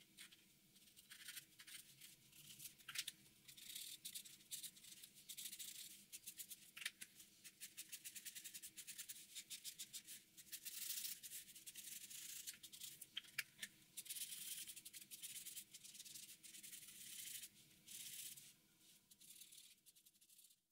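Black felt-tip marker scratching across paper in quick, repeated strokes, a faint dry rasp with small ticks as the tip lands and lifts. It cuts off abruptly at the end.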